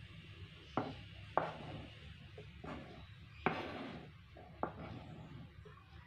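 Kitchen knife knocking and scraping on a plastic cutting board as chopped spring onions are pushed off into a plastic basket. The knocks are few and irregular, the loudest about three and a half seconds in, followed by a short scrape.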